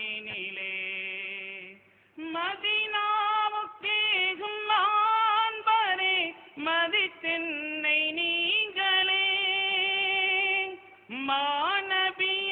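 A young man's solo voice singing a naat, an Urdu devotional hymn in praise of the Prophet, unaccompanied, in long held and ornamented phrases, with a short breath break about two seconds in and another near the end.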